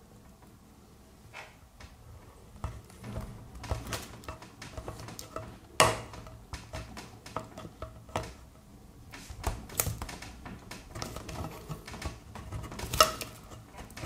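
Victorinox Swiss Army knife can opener levering its way around the rim of a tin can: a long string of irregular sharp metallic clicks and crunches as the cutter is rocked up and down and punches through the tin lid in small steps. Two clicks stand out louder, about six seconds in and near the end.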